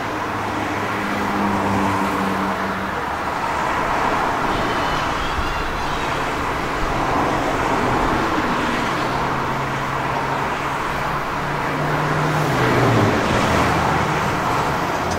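Steady rumble of an approaching Amtrak electric locomotive mixed with road traffic, with a low hum that shifts in pitch and drops about 13 seconds in.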